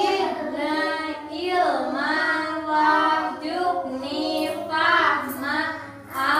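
A young girl and a woman chanting an Arabic Islamic prayer together in a sing-song melody, in long held phrases.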